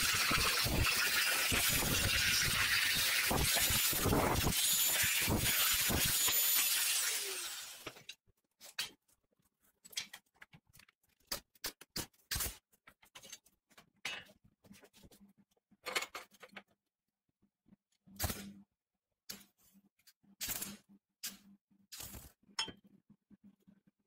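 Angle grinder cutting through steel square tube: a loud, steady grinding with a high whine that stops about eight seconds in. After that come many short crackling bursts from a MIG welder laying tacks and short beads.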